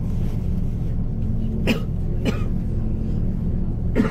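A bus engine and road noise heard from inside the cabin, a steady low hum. Two short vocal sounds, like a cough, come about halfway through.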